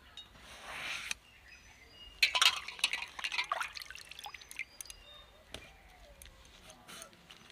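Water poured into an aluminium pot of cut bottle gourd pieces, splashing for about a second and a half starting about two seconds in, followed by a few drips and light clinks. A short scraping hiss comes just before, about half a second in.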